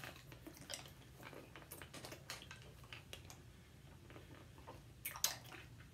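Quiet wet mouth clicks and smacks of people sucking on Atomic Fireball hard candies, with a couple of louder clicks about five seconds in, over a low steady room hum.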